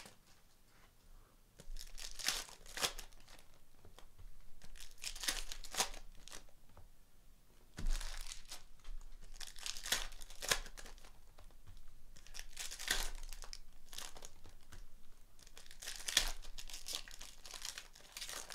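Foil wrappers of Donruss Optic basketball card packs being torn open and crinkled, in about six crackly bursts a few seconds apart. A single thump comes about eight seconds in.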